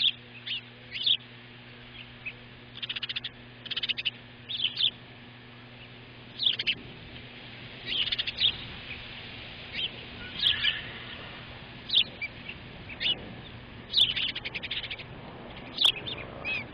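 Osprey chirping: short, sharp, high whistled chirps, some single and some in quick runs, coming every second or so.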